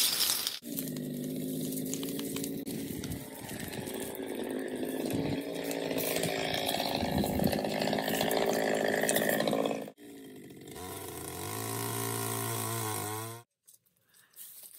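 Small petrol engine of a power tool running fast and steady. After a break it runs again, its pitch dipping and rising briefly, then stops abruptly near the end.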